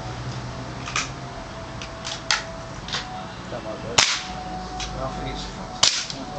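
Several sharp shots from small air guns, cracking at uneven intervals. The loudest comes about four seconds in and another near the end.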